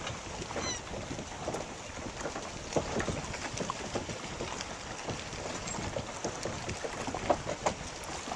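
Wind on the microphone and choppy lake water, with many small irregular splashes and slaps. A short high bird call comes near the start.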